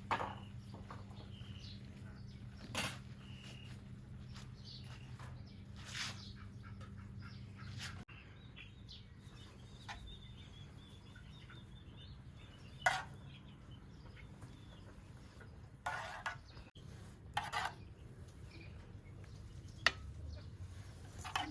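Small birds chirping on and off over a low steady hum, with a handful of sharp knocks and clinks spread through.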